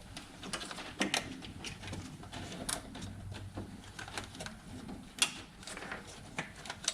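Irregular small clicks and rattles of plastic injector wiring connectors and jumper wires being handled and clipped together, with one sharper click a little after five seconds.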